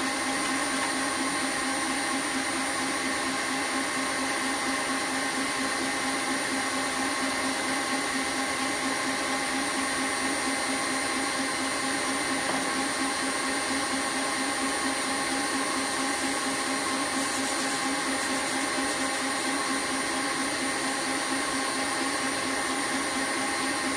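Electric stand mixer running steadily at high speed, beating the bath bomb mixture; an even motor whine that holds one pitch throughout.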